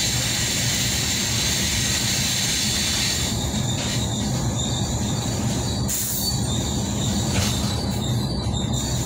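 Adapazarı Express passenger train heard from inside a carriage, its wheels running on the rails with a steady rumble and a thin high whine over it.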